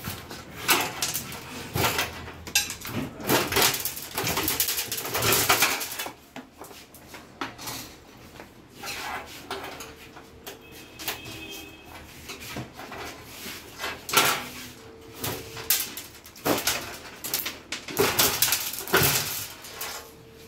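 Glued LED backlight strips being yanked and pried off the metal back panel of a Singer SLE49E3SMTV LED TV: an irregular run of sharp snaps, scrapes and knocks with short pauses between.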